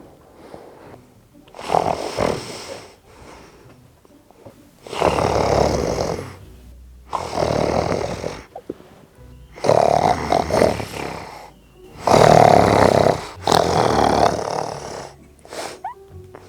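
A person snoring really loudly and on purpose: about six long snores, a second or so each, a couple of seconds apart.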